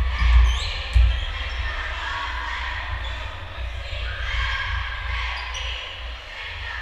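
Basketball bouncing on a gym floor, with several heavy thumps in the first second, over the steady chatter of voices in a large gym.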